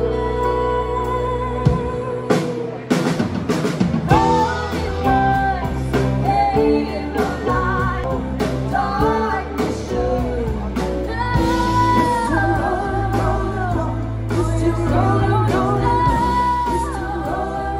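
Live pop-rock band playing with a female lead singer: electric guitar, keyboard and drum kit behind her voice. A held chord opens, drums hit about two to three seconds in, and her singing comes in about four seconds in and carries on.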